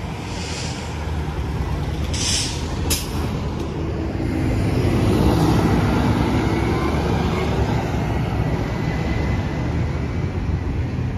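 Transit buses pulling away: a steady engine drone that grows louder as a bus passes close about five seconds in. Short air-brake hisses come a little after two seconds and again just before three seconds.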